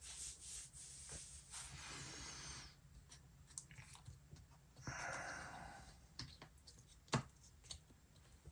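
Faint handling noises from work inside an opened laptop: two stretches of rustling and scraping, light ticks, and one sharp click a little past seven seconds.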